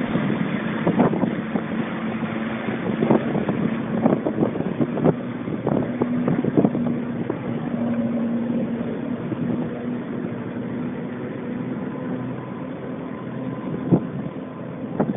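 Water jetpack's engine running steadily as it drives water up to the pack, with a steady drone and wind knocking on the microphone.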